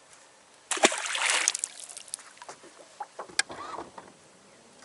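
A short splash of water about a second in, then a single sharp knock a few seconds later.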